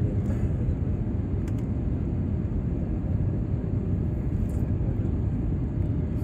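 Steady low rumble of a passenger airliner heard from inside the cabin.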